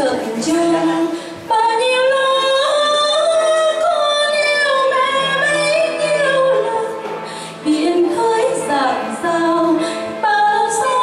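Female singing: a slow song with long held notes that slide between pitches, with short breaths about one and a half seconds in and again about seven and a half seconds in.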